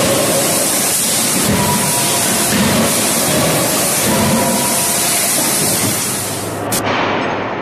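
Loud, steady hissing of forge-shop machinery around a press working hot forgings, with a few faint hums under it. The hiss cuts off sharply near the end.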